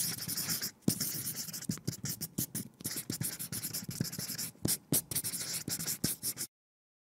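A pen writing: a quick run of scratching strokes with short gaps between them, stopping about six and a half seconds in.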